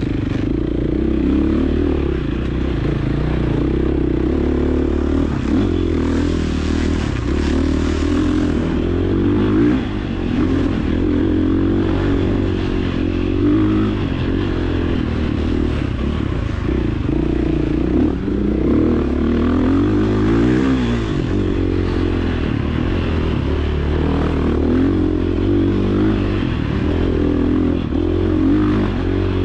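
Enduro dirt bike engine revving up and down continuously on a trail ride, with clattering and scraping from the bike over rough ground.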